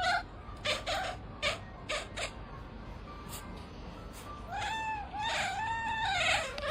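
Domestic cat meowing: one short meow about a second in, then a quick run of four or five drawn-out, rising-and-falling meows over the last two seconds, with a few sharp clicks in between.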